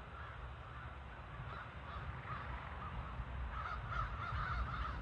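A large flock of American crows cawing over one another as they gather at their winter roost. The calling grows denser and louder from about two seconds in, over a low rumble.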